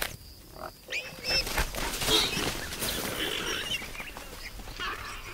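A warthog charging a leopard through dry grass: a rushing, rustling noise of the chase, with scattered short, high squeals and cries.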